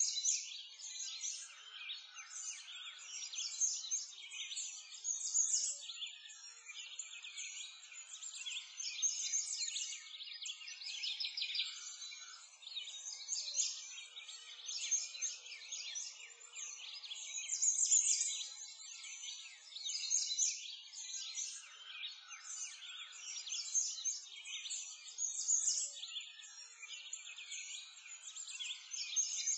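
A dense chorus of many small songbirds chirping and twittering without a break, swelling and fading every few seconds.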